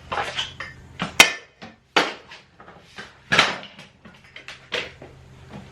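Items being handled and knocked about while a storage unit is sorted through: four or five sharp clatters and knocks, the loudest with a brief ring, with quieter scuffing and rustling between.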